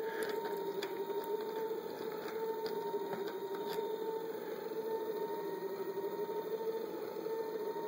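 Steady hum from the delta 3D printer, its pitch wavering slightly, with a few faint light clicks of a printed plastic part being handled and unscrewed.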